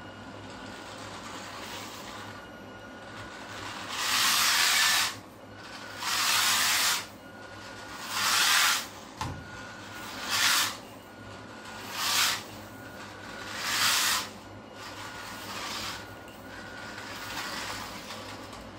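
Converted toy RC car's hobby-grade electric drive with 3D-printed gears whirring in about six short spurts of roughly a second each, its hard plastic wheels rolling on a laminate floor.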